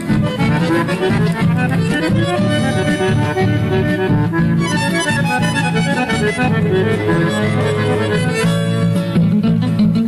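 Instrumental music on a 1986 cassette recording: an accordion plays a moving melody over guitar accompaniment with steady low chords. No voice is heard.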